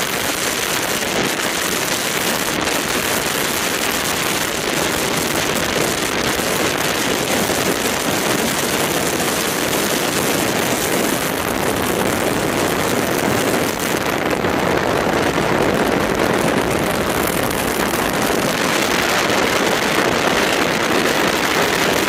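Steady rush of wind and road noise from a car travelling at speed, with the side window open.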